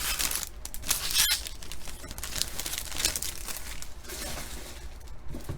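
Crinkling of a plastic trading-card pack wrapper being handled, an irregular crackle with sharp little clicks.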